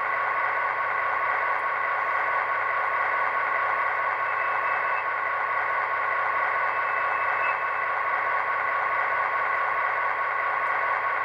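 Soundtraxx Tsunami 2 sound decoder in an HO-scale Athearn GP15-1 model playing a steady diesel locomotive engine sound through the model's small onboard speaker, with a faint high tone briefly twice in the middle.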